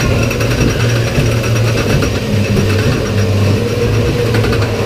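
PAX-built family roller coaster train running on its steel track through a covered section, making a steady mechanical rattle over a constant low hum.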